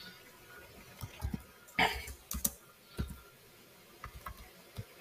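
Computer keyboard being typed on: scattered single keystrokes at an uneven pace, with short pauses between them.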